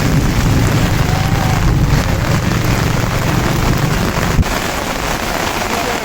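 Heavy rain pouring down steadily, mixed with the rush of a swollen, flooding river. A low rumble underneath drops away about four seconds in, with a single sharp knock at that point.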